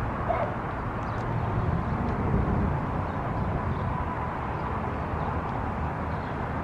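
Steady outdoor street ambience: a low, even rumble with no distinct events.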